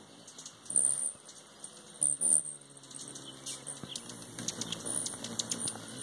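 Hummingbirds at a feeder: wings humming as they hover, with high squeaky chip calls, the two loudest about one and two seconds in. The humming grows fuller, with many quick ticks and chips, over the last couple of seconds.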